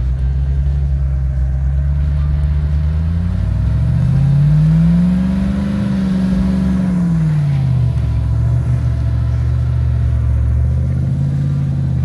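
Big engine running at low revs, then revving up over a couple of seconds, holding, and dropping back about eight seconds in, with a smaller rise near the end. The revving is a Jeep Wrangler on a tow strap working to pull a box truck out of deep snow.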